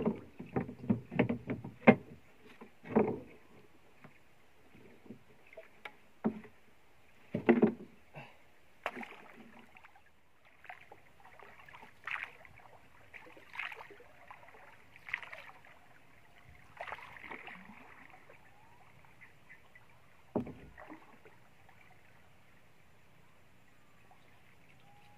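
Sharp wooden knocks and clatter against a small wooden boat's plank deck in the first few seconds, with another loud knock a few seconds later. Then a wooden paddle stroking through the water, about one stroke every second and a half, with one more knock against the boat near the end.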